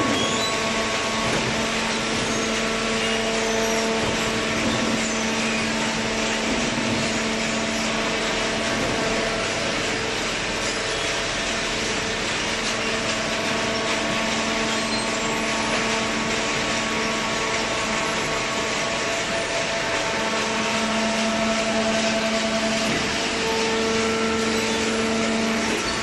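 A running hydraulic waste-paper baler installation: a steady motor-and-pump drone under a constant hiss.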